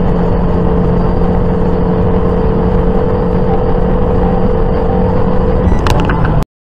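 Car travelling at highway speed: a loud, steady drone of engine and road noise with a constant hum. A few sharp clicks come just before it cuts off abruptly near the end.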